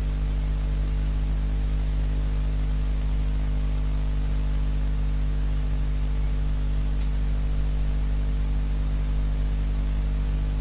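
Steady electrical hum with evenly spaced overtones, under a constant hiss of static.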